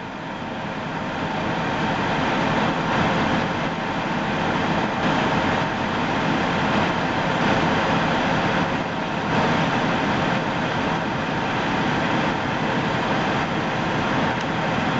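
A vehicle engine running steadily, heard as a constant even noise with a faint hum.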